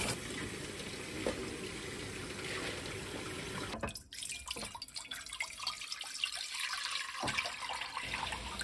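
Kitchen tap running onto cabbage leaves being rinsed by hand in a strainer in a stainless steel sink. About four seconds in it cuts to water poured from a plastic jug into a pan, splashing unevenly.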